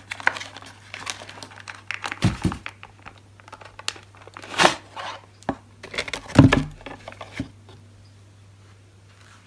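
Plastic packaging crinkling and rustling in the hands as a mains adapter is unpacked, with two louder dull knocks about two and six seconds in; the handling stops after about seven seconds.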